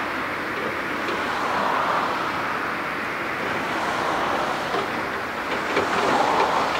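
Four GEnx jet engines of a Boeing 747-8 at takeoff thrust as the jumbo rolls down the runway: a steady roar that grows a little louder near the end.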